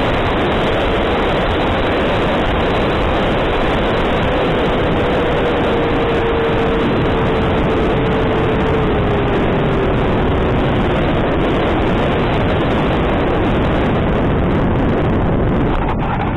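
Electric ducted-fan motor of an E-flite F-15 RC jet in flight, heard from an onboard camera together with the rush of air over it: a loud, steady rushing noise. A faint tone runs through the middle and dips slightly in pitch, and the noise begins to fade right at the end as the jet comes down onto the grass.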